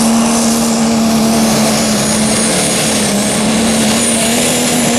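Super stock diesel pickup truck pulling under full power: a loud, steady engine note with a thin high whistle above it, the pitch sagging slightly midway and climbing again near the end.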